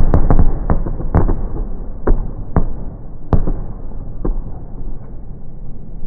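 Fireworks bursting: a quick cluster of sharp bangs at the start, then single bangs every half second to a second, thinning out after about four seconds.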